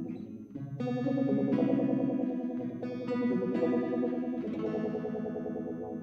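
Electric guitar played through a board of effects pedals: a series of strummed chords, each left to ring, with a short dip in the sound about half a second in.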